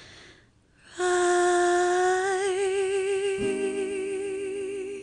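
A woman's voice holds one long sung note with a slow vibrato, close to a hum, entering after a brief pause about a second in. About halfway through, a soft low acoustic guitar note sounds under it.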